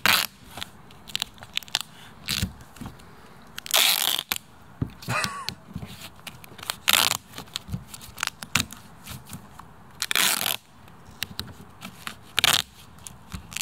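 Duct tape being pulled off the roll in about five loud ripping bursts, between them crackling and rubbing as hands press and smooth the tape onto a car's door and window frame.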